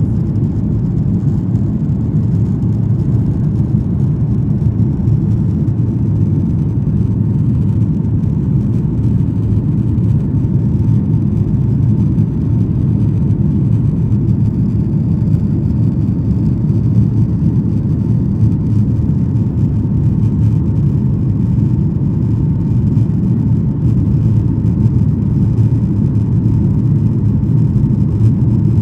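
Cabin noise of a Ryanair Boeing 737-800 climbing just after takeoff, heard from a seat over the wing. A steady low rumble of the jet engines and rushing air, with a faint steady whine above it.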